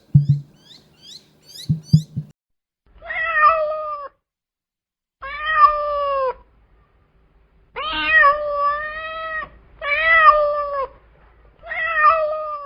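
Domestic cat meowing: five long, drawn-out meows, each about a second long, with short pauses between them. They start about three seconds in, after a few faint clicks.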